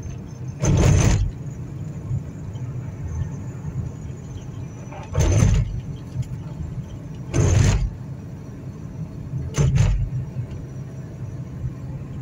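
Car tyres running over raised transverse rumble strips on the highway, heard from inside the cabin: four loud bursts of about half a second each, about a second in, then past five, past seven and near ten seconds, over a steady low hum of road and engine noise.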